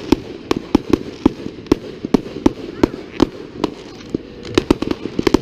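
Fireworks going off: a fast, irregular run of sharp bangs and cracks, several a second, bunching into a quick cluster near the end.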